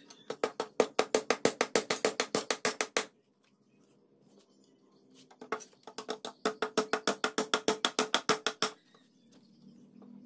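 A hammer driving nails into the wooden slats of a shelf: two runs of quick, even strikes, about seven a second, each lasting about three seconds with a short pause between.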